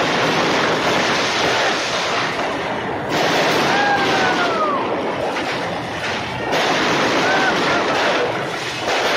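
Aerial fireworks bursting overhead in a dense, continuous crackle that swells suddenly about a third of the way in and again about two-thirds in. A brief whistle rises and then falls in pitch near the middle.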